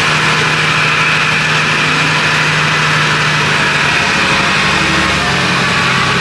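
Farm tractor engine running under load as it hauls the safari trailer up a hill; its note changes about four seconds in.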